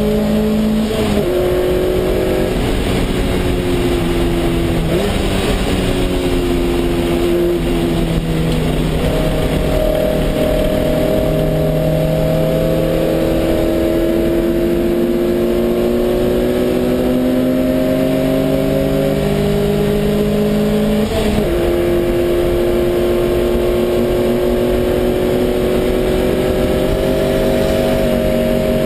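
Lotus race car's engine heard from inside the cockpit, accelerating hard, its pitch climbing slowly through long stretches with a few quick gear changes, over a haze of wind and road noise.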